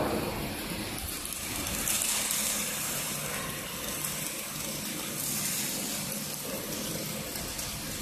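Steady hissing background noise of a steel fabrication workshop, swelling twice.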